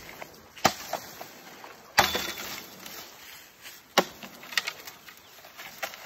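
Bamboo being chopped: three sharp chopping blows about two seconds apart, with a few lighter knocks between them.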